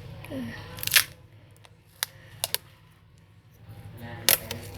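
Sharp clicks and taps from handling craft tools and materials on a work surface: a loud click about a second in, single clicks near two and two and a half seconds, and another near the end.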